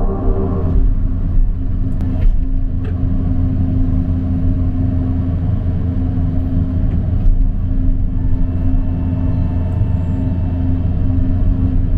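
John Deere 50G mini excavator's diesel engine running steadily, heard from inside the cab as a low drone. A few faint clicks come from the machine about two, three and seven seconds in.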